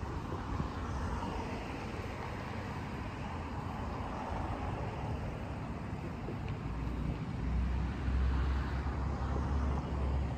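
Outdoor road-traffic noise, an even hiss of distant vehicles. A steady low rumble comes in about two-thirds of the way through.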